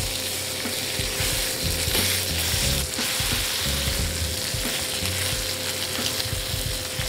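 Char siu-glazed Ibérico pork secreto sizzling steadily in hot beef fat in a non-stick frying pan, freshly turned onto its second side.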